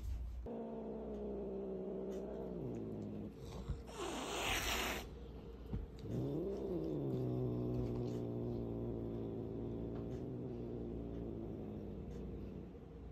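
Cat giving a long, low warning growl-yowl at the dog, falling in pitch. About four seconds in it hisses once, then starts a second long growl that rises, drops and holds low until near the end.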